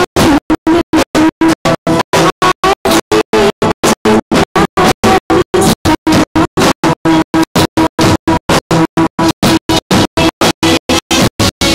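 Live stage music: a woman singing into a microphone over an electronic keyboard and band accompaniment. The sound is cut by rapid, regular dropouts several times a second, a stuttering fault in the recording.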